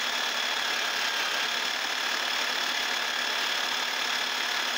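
DIY paint shaker running at full speed: a variable-speed electric drill's motor whines steadily while it shakes a quick-grip clamp holding a jar of metallic model paint.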